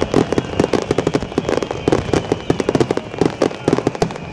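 Fireworks barrage: many aerial shells bursting in quick succession, several sharp bangs and cracks a second overlapping one another.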